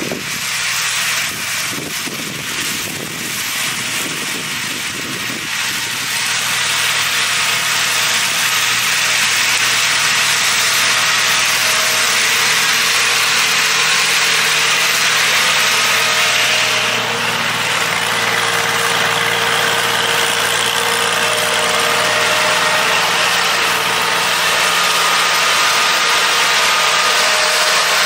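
Compact tractor running steadily under load while driving a Farm Maxx FDM-135 two-drum hay mower through standing hay, an even engine hum under a broad steady hiss. It grows louder over the first several seconds as the tractor comes closer, then holds steady.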